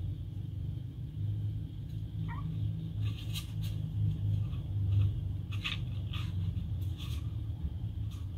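Two kittens scuffling on a hard plastic stand base, with a run of sharp clicks and taps of paws and claws from about three seconds in. A short rising squeak comes a little after two seconds in, over a steady low rumble.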